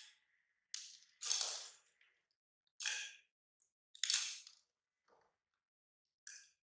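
Crisp cracker snapping and crunching in short, sharp crackles, about six of them spread out with pauses between, as pieces are broken off and bitten.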